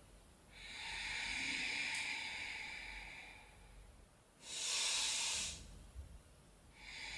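A woman's slow breathing, heard as airy breaths: a long breath of about three seconds, then a shorter, louder breath about four and a half seconds in, and the next breath starting near the end.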